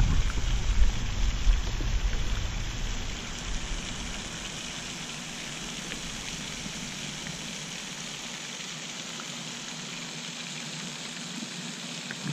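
Steady, rain-like hiss of a pond fountain's spray falling back onto the water, with wind rumbling on the microphone for the first few seconds.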